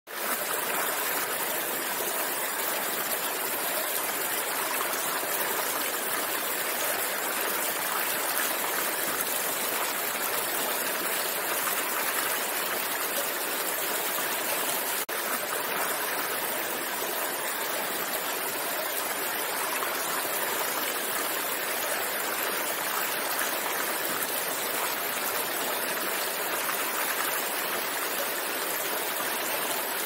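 Shallow stream spilling over a small rock ledge: a steady rush and splash of running water, bright, with little low rumble.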